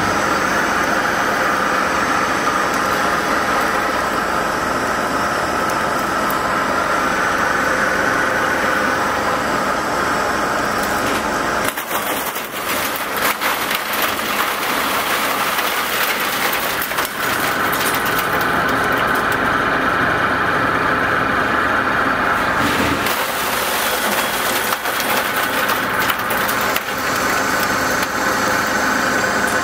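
CBFI HYF50 plate ice machine running with a steady mechanical hum. Through the middle stretch, for about ten seconds, a dense crackling clatter joins in as broken plate ice slides and drops off the machine.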